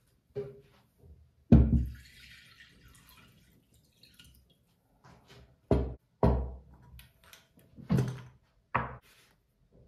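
Kitchen items handled on a wooden table: a glass bowl set down with a thunk and water poured into it, then four knocks as small glass jars are set down beside it one after another.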